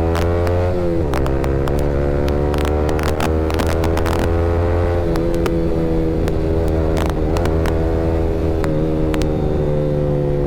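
Yamaha R15 V3's 155 cc single-cylinder engine running through an R9 aftermarket exhaust at a steady cruise, the exhaust note dipping briefly about a second in and then holding level. Scattered short clicks sound over it.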